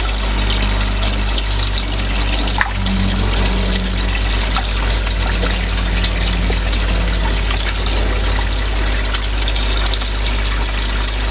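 Water trickling and splashing in a large goldfish tank as a hand net is worked through it to catch fry, over a steady low hum from the aquarium air pump.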